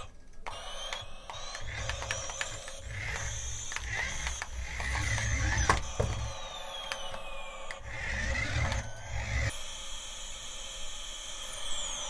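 Battery-powered remote-control toy aeroplane driving across a cloth-covered table: its small geared drive motor whirring in spurts, stopping and starting several times, with clicks and high whines sliding in pitch.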